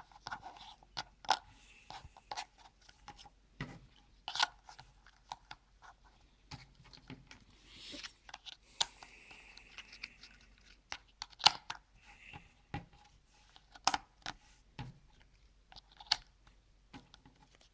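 Cardboard jigsaw puzzle pieces being handled and pressed into place: irregular small clicks and taps, with a soft rustle of cardboard about halfway through.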